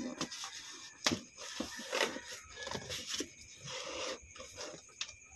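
A knife scraping and cutting at packing tape on a cardboard box, with scattered short scrapes, taps and rustles of the cardboard.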